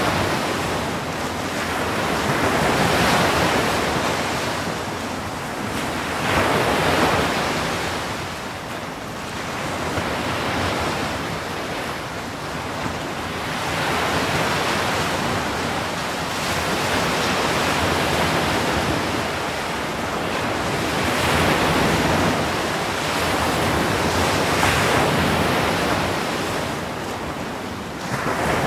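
Atlantic surf breaking on the shore: a continuous rushing wash of foam, swelling louder as a wave crashes every few seconds.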